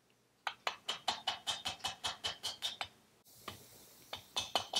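Rapid, light mallet taps on a Vespa PX piston, driving it and its rings, held by a cable tie in place of a ring compressor, into the cast-iron cylinder barrel: about eight sharp taps a second for a couple of seconds, a brief pause, then a few more taps near the end.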